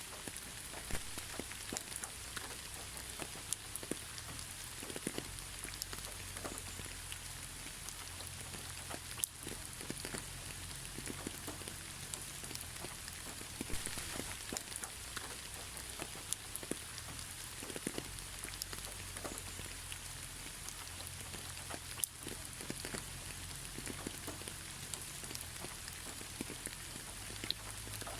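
Steady moderate rain falling, with many individual drops ticking sharply on a surface over an even hiss and a low rumble; no thunder.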